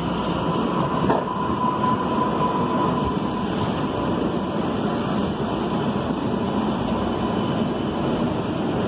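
MBTA Green Line light-rail train moving through an underground station: a steady rumble of wheels on rail, with a thin squeal during the first couple of seconds and a single clank about a second in.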